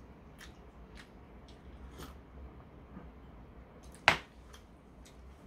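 A glass set down with a single sharp clink about four seconds in, after a few faint small clicks while a man drinks from it.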